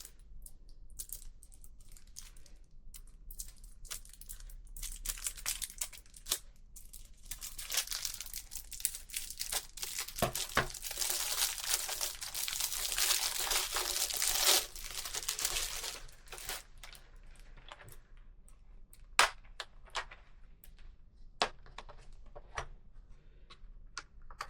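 Parcel packaging being crinkled and torn open by hand: scattered crackles at first, a dense spell of tearing and crinkling through the middle, then a few sharp clicks near the end.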